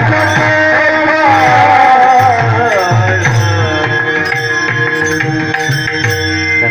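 Devotional bhajan music: a melodic line over steady hand-drum beats, with bright cymbal clinks.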